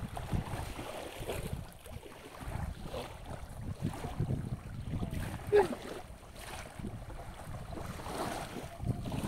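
Wind rumbling on the microphone over the wash and slosh of shallow running water around someone wading with a hand net, with one short sharp pitched sound about five and a half seconds in.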